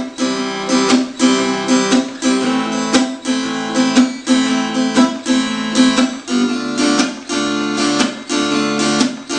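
Acoustic guitar strummed in a rhythm, each chord cut off short by easing the fretting hand's pressure off the strings (left-hand muting), giving choppy stop-start chords about twice a second.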